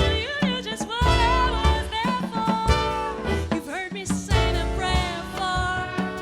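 Jazz ensemble playing a swing-style arrangement of a show tune, a wavering melody line over bass and drums.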